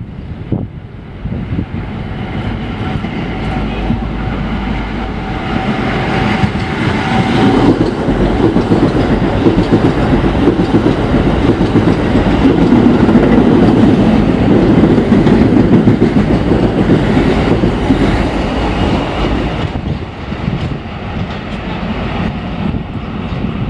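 An R160 New York City subway train passes through a station at speed without stopping, its wheels rumbling on the rails. The sound builds over the first several seconds with a thin steady tone, is loudest midway, and fades over the last few seconds.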